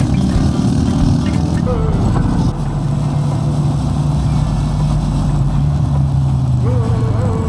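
Motorcycle engine running while riding, a steady low note that slowly drops in pitch until just before the end.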